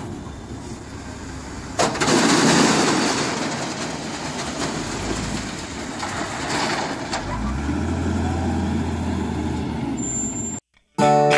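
A wheel loader's diesel engine runs as crushed stone is tipped from its bucket into the steel bed of a Mitsubishi Canter dump truck. A loud rush and rattle of stone starts about two seconds in, and a shorter one comes near seven seconds, with a steady engine drone after that. The sound cuts off just before the end.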